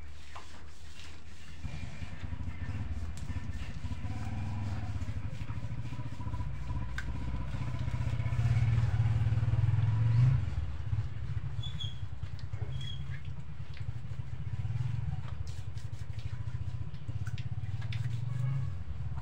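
Low rumble of an engine, swelling to its loudest about ten seconds in and then easing off, with scattered small clicks over it.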